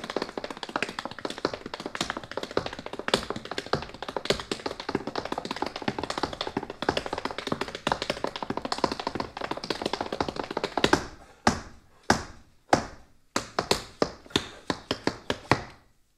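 Tap shoes striking a stage floor in an unaccompanied tap solo: a fast, dense flurry of taps that thins after about eleven seconds into single sharp strikes with short pauses between them.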